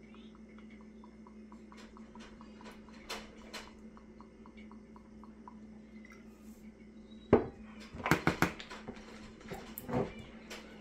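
Faint light ticks, then a few sharp knocks and a short clatter in the second half: a glass Worcestershire sauce bottle set down on a wooden table and a measuring spoon tapping in a mixing bowl.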